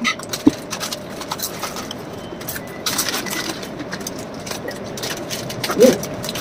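Potato chips crunched while chewing, with the crinkle of foil chip packets being handled, over a steady low hum. A brief voice sound comes near the end.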